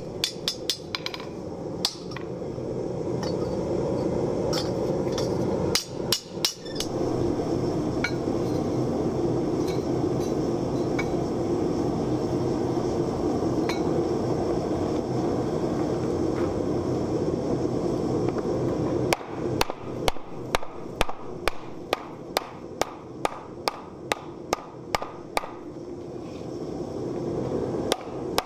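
A few hammer blows on steel at the start. Then a long stretch of a gas forge burning with a steady rushing noise while a spoon blank heats. From about two-thirds of the way in come evenly spaced hammer blows, about two a second, dishing the red-hot steel spoon bowl into a hollow in a wooden stump.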